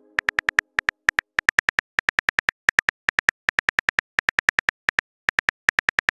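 iPhone-style on-screen keyboard clicks as a message is typed: rapid, identical short ticks, about seven or eight a second, in quick runs with brief pauses between them.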